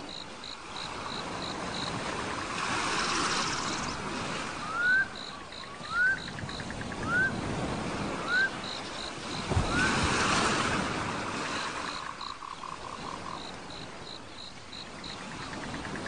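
Sea waves washing in slow swells, with a run of five short rising whistled calls about a second apart in the middle and rows of quick, high repeated chirps.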